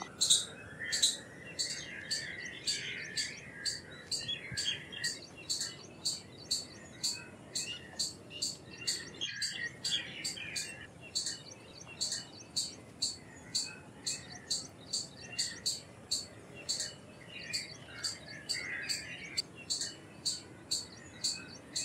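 Indian palm squirrel calling: a steady run of sharp, high chips, about two or three a second, with softer irregular chirps beneath.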